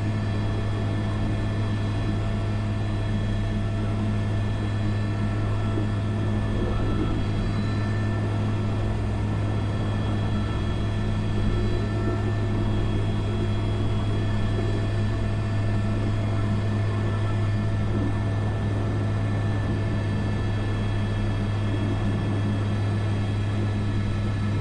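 Airbus AS350 B3 (H125) helicopter's turbine and rotors running steadily in slow, near-hover flight, heard from inside the cockpit as an even drone with a constant low hum.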